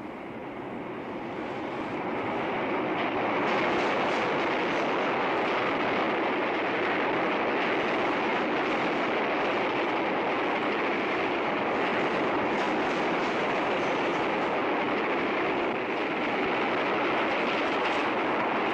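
Subway train rushing past: a dense rumble and rattle of wheels on track that builds over the first few seconds, then stays loud and steady.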